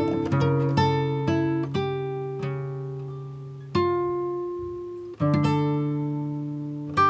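Background music: plucked acoustic guitar notes and chords, each ringing out and fading before the next.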